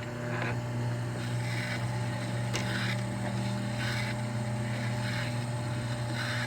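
Wire stripping machine running as copper wire is fed through it: a steady motor-like hum with a second tone that stops about five seconds in, and a soft rasp of insulation being cut roughly once a second.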